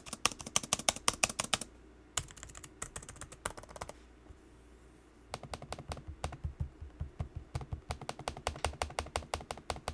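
Typing on a Dell XPS 15 9570 laptop keyboard: quick bursts of key clicks, a pause of about a second and a half around the middle, then steady fast typing.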